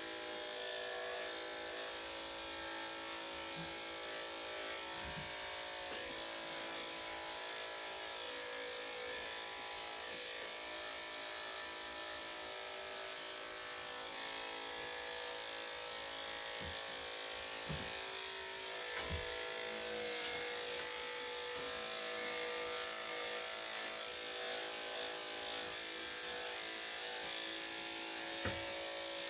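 Electric dog grooming clippers with a number 5 blade running with a steady hum, with a few light knocks.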